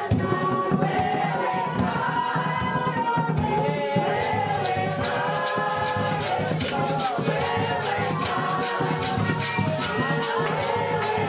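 A congregation singing a worship song together in many voices, with a shaker keeping a steady beat from about four seconds in.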